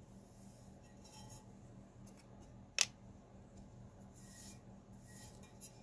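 Faint, soft brushing and rubbing of a brush's bristles over a painted tumbler during alcohol-ink work, with one sharp click about three seconds in, over a low steady hum.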